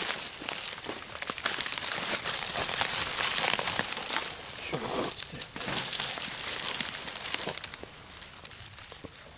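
Dry reed and grass stalks crackling and rustling as hands and bodies push and work through them, with many small snaps. The crackling dies down near the end.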